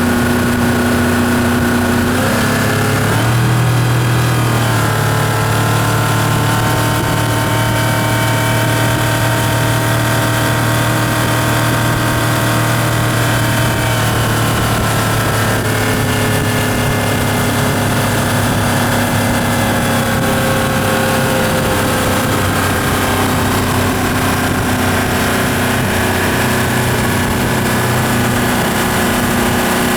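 Yamaha F150 150 hp four-stroke outboard running steadily. Its note climbs about two to three seconds in as the throttle opens, holds at the higher speed, then drops back to the lower steady note around the middle.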